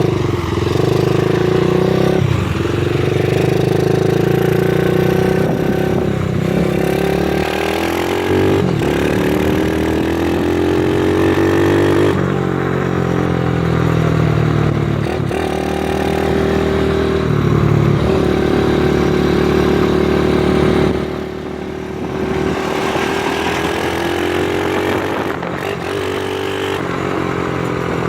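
Pit bike's single-cylinder engine, fitted with a high-compression piston and running a stripped, louder exhaust, revving under way. Its pitch climbs and drops several times as it accelerates and shifts, and it eases off briefly about three quarters of the way through.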